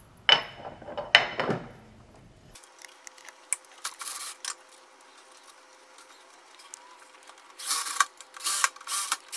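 Two loud clacks of the surge protector's cover being handled, then a cordless drill/driver running in short bursts as it drives the cover screws home: one brief run about four seconds in and three quick runs near the end.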